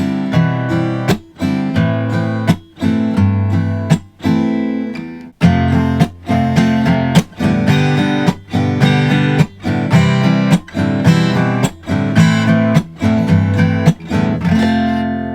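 Acoustic guitar strummed in a steady rhythm, with short choked gaps between strokes, playing C major, C with B in the bass, A minor and A minor with G in the bass, so a walking-down bass run leads from chord to chord. The last chord rings out and fades near the end.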